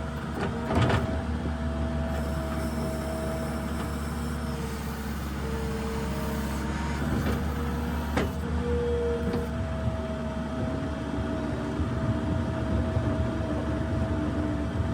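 New Holland LS170 skid steer's diesel engine running steadily under work, with whining tones that come and go. Two sharp knocks stand out, about a second in and about eight seconds in.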